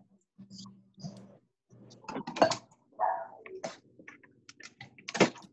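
Wire whisk clicking and tapping against a mixing bowl as icing is whisked, in irregular clicks with a couple of louder knocks, over a steady low hum.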